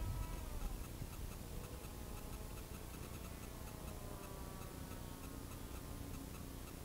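Light wind buffeting the microphone, with a faint distant whine that drops in pitch about half a second in and rises again around four seconds in, over faint regular ticking.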